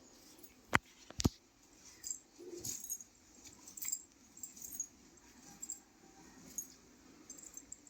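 Two sharp clicks close together, followed by faint, scattered small clicks and light metallic rattling.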